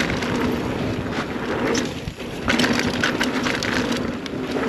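Full-suspension mountain bike (2021 Scott Spark 970) riding fast down a dirt trail: a steady rush of tyre and trail noise with constant clicking and rattling from the bike over bumps. It eases briefly about two seconds in, then gets louder.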